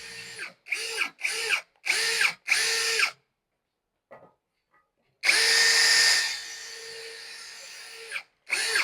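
Electric drill run in five short trigger pulls, each whining up to speed and back down, then after a pause one longer run of about three seconds that drops to a quieter, lighter whine about a second in.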